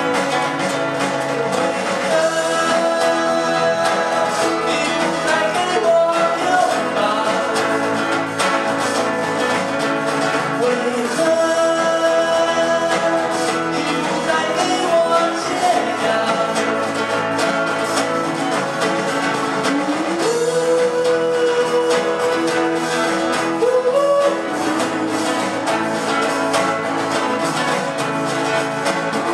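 Band music with guitar: a passage between lyrics where a lead melody holds long notes and slides up into some of them.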